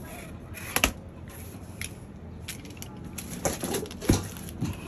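Cardboard shipping box being cut open and handled with a snap-off utility knife: scraping and rustling of cardboard with a few sharp knocks, one just under a second in and a cluster around four seconds in, the loudest of them about four seconds in.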